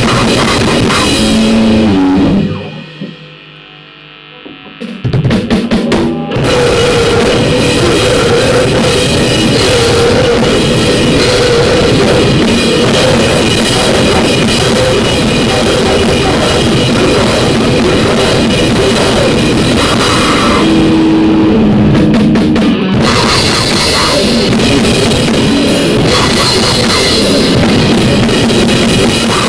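Harsh noise music: a loud, dense wall of distorted noise with a pounding, drum-like texture. About two and a half seconds in it drops away almost to quiet, then stutters back in rapid choppy cuts before running on unbroken.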